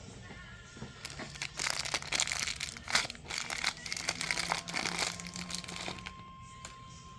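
Loud crinkling, rustling noise lasting several seconds over quiet background music.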